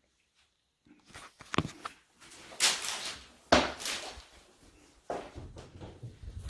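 Household handling noises: after about a second of near silence, a run of sharp knocks and rustling clatter, with a low rumble joining near the end.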